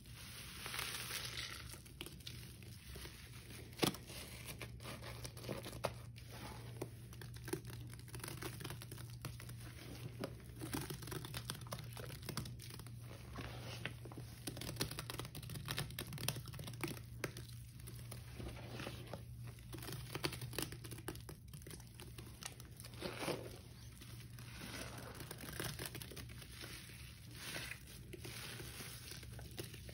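A sponge squeezed and kneaded by hand in thick wet Ajax cleanser paste, giving a dense run of small wet crackles, with a sharp click about four seconds in.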